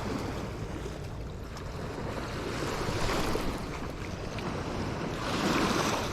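Wind buffeting the microphone over waves washing against the lake shore, a rushing noise that swells twice.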